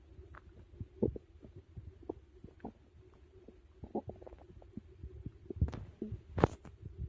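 Stomach growling and gurgling while digesting a big meal: a run of short, irregular gurgles and pops over a faint steady hum, with louder squelches about a second in and twice near the end.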